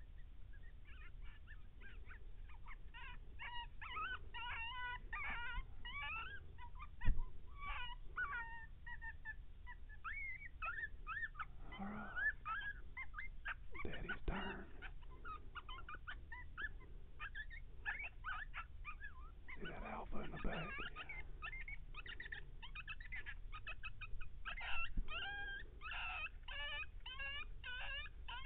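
Coyotes yipping and howling in a chorus of high, quickly wavering yips, with dense runs in the first several seconds and again in the last few seconds. A single sharp tap about seven seconds in.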